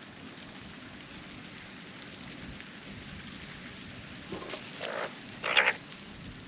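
Steady wind noise, with a few short, harsh calls from Australian magpies close by in the second half; the last call, about a second before the end, is the loudest.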